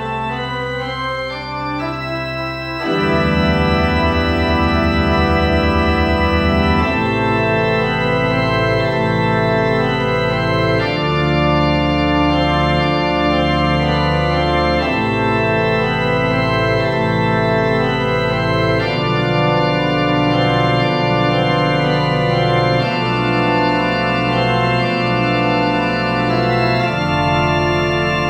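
Instrumental art-rock music of sustained organ-style keyboard chords, the chord changing about every four seconds. It swells louder about three seconds in.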